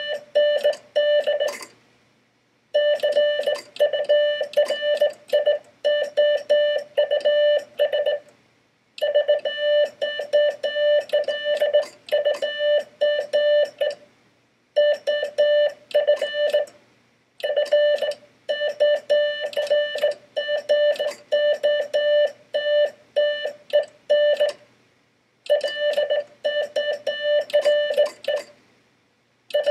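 Morse code sent on a Vibroplex bug key and heard as a steady sidetone of about 600 Hz, keyed in fast runs of short and long beeps with sharp clicks at the keying. The runs are broken by short silent pauses every few seconds, between words of the first stanza of Poe's The Raven.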